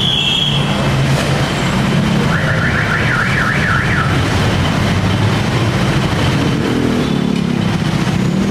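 Steady city street traffic. A couple of seconds in, a warbling electronic alarm tone rises and falls rapidly, several times a second, for about two seconds.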